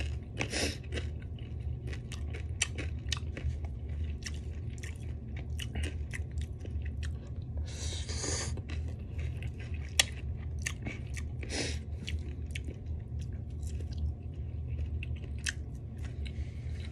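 Close-miked chewing and crunching of fried food, with many quick, sharp bites. A long noodle slurp comes about eight seconds in.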